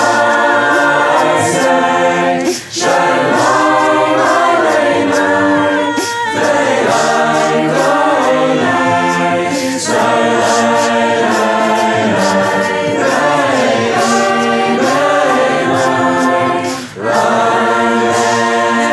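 Mixed-voice a cappella choir of men and women singing sustained phrases in harmony, with no instruments. It is a virtual choir, each voice recorded separately and mixed together. The singing breaks briefly between phrases about two and a half seconds in and again near the end.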